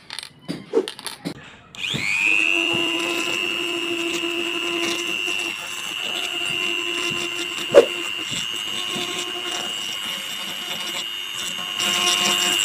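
A few handling clicks, then a Digital Craft mini die grinder (rotary tool) switches on about two seconds in with a rising whine and runs at a steady high speed. Its small polishing bit grinds against a wooden block, with one sharp click about eight seconds in.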